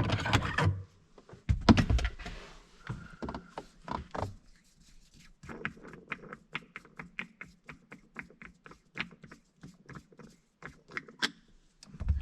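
Hand-unscrewing the gear and transfer-case shifter knobs in a Toyota FJ Cruiser's cabin: a heavy knock about two seconds in, then a long run of light clicks and taps as the knobs are turned off their threads.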